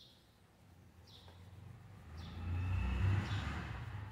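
A road vehicle passing by: a low rumble that swells, is loudest about three seconds in, then fades. A bird chirps repeatedly, a short high note about once a second.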